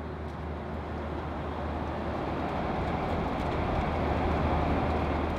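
Steady cabin noise of a Boeing 737-800 in flight: the even roar of airflow and engines with a low hum underneath, growing a little louder toward the end.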